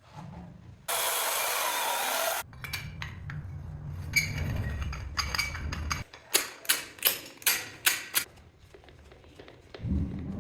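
Hand tools and fittings being worked during a shower-head installation: a loud hiss lasting about a second and a half, then scattered knocks and scraping, and a run of seven sharp clicks or taps about three a second.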